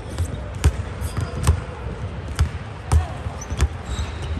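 A basketball bouncing on a hardwood court floor: about five sharp thumps at uneven intervals.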